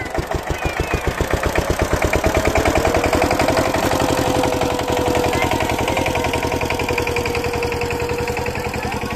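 Tractor engine revving up over the first two or three seconds, its firing pulses quickening and growing louder, then running hard and steady at high revs.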